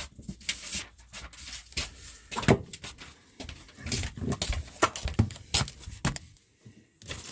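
Scattered knocks, clicks and rustling from handling a bathroom wall heater and its parts, with the loudest knock about two and a half seconds in.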